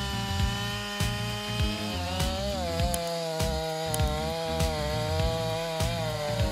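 Two-stroke chainsaw running at high revs while cutting, its pitch dipping and recovering a few times under load, over background music with a steady beat.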